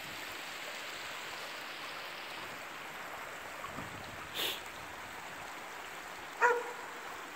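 Small creek running with a steady rush of water. A short crackle comes a little past halfway, and a single dog bark near the end stands out as the loudest sound.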